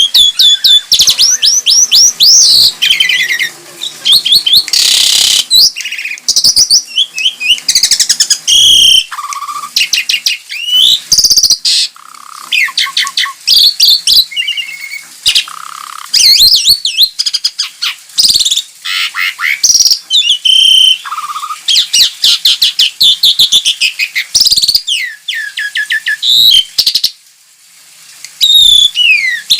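Jalak (Indonesian starlings and mynas) singing: loud runs of rapid, falling whistled notes mixed with harsh squawks and chatter, with a short pause near the end.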